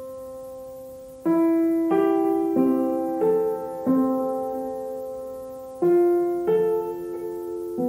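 Slow background piano music: single notes and chords struck one after another and left to ring out and fade, with a longer held pause in the middle.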